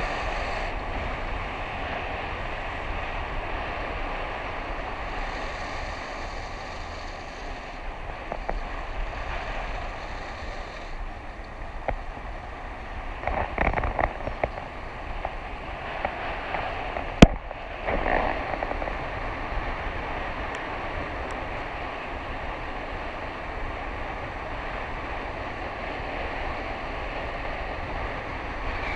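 Inline skate wheels rolling fast over wet asphalt: a steady rushing noise mixed with wind on the microphone, with a few louder swells near the middle and one sharp click a little after them.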